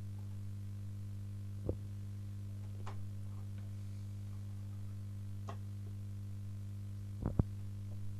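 Steady low electrical hum, with a few sharp knocks and clicks as objects are handled and put down; the loudest is a double knock near the end.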